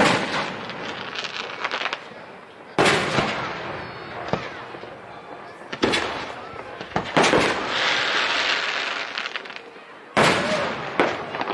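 Aerial fireworks shells bursting: about five loud booms a couple of seconds apart, each fading out with a ringing echo. A stretch of dense hissing crackle follows the fourth boom.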